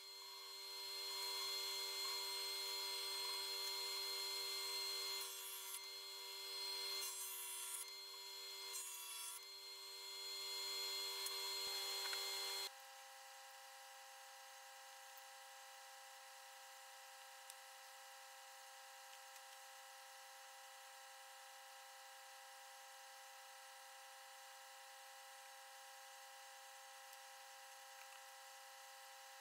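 Jointer running and planing a wooden block, its cutter noise swelling and dipping with each pass, for about the first twelve seconds; then it cuts off suddenly, leaving only a faint steady hum.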